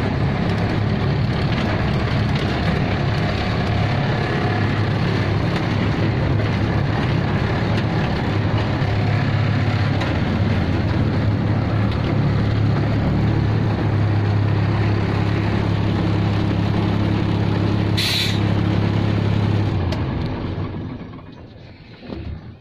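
Diesel truck engine running steadily, heard from inside the cab while driving. Near the end comes one short, sharp hiss, and then the engine sound dies away as the truck stops.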